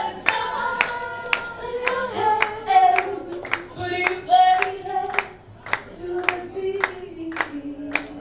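A woman singing into a handheld microphone in long held notes that drift lower near the end, with people clapping along in time, about two claps a second.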